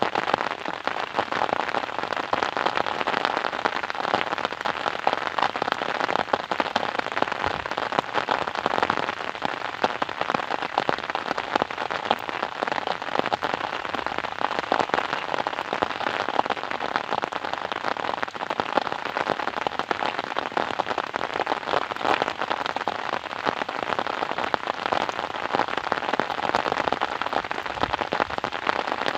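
Steady rain pattering on a surface, a dense even hiss of many close, crackling drops with no change in strength.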